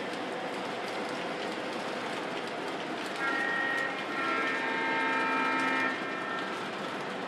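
Lionel O-scale model trains rolling on the layout's track with a steady rumble and clatter. About three seconds in, a locomotive's onboard sound system blows a multi-tone horn: a short blast, then a longer one of nearly two seconds.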